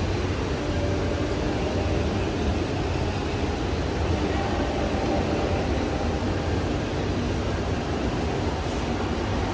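Steady low rumble of a large store's indoor background noise, with no distinct event standing out.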